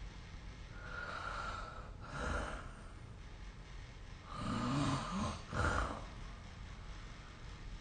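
A sleeping person snoring, recorded by a phone snore-tracking app: uneven breaths, with the loudest, pitched snore a little past halfway and a short sharp one right after it.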